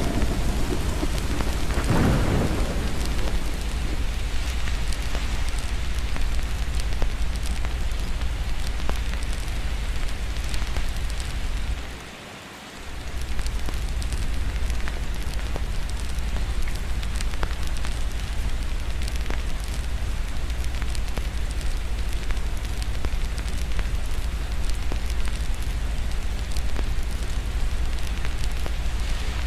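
Steady rain with a deep rumble of thunder, swelling loudest in the first few seconds. The whole sound drops away briefly about twelve seconds in, then returns.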